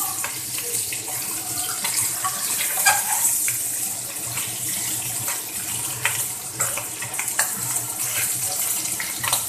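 Chicken frying in oil in a pan: a steady hissing sizzle with scattered light clicks and a low hum underneath.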